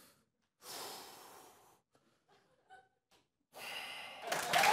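A long, breathy exhale from the performer about a second in. Audience applause starts near the end and quickly grows loud.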